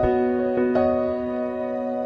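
Gentle background music on a piano-like keyboard, with a few notes struck and left to ring.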